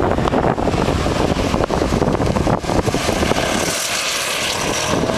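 Porsche Panamera driving past close by, its engine running with tyre noise, over heavy wind rumble on the microphone. About three and a half seconds in the rumble drops away and a brighter hiss takes over as the car goes by.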